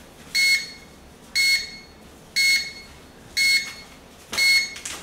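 Electronic timer alarm beeping: one high tone repeated five times, about once a second, each beep short. Typical of a heat press signalling that the pressing time on a shirt transfer is up.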